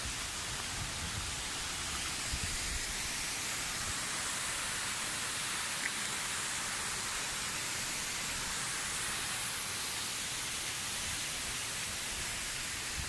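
Steady rushing of a waterfall's falling water, an even hiss without pauses, with a couple of faint low thumps.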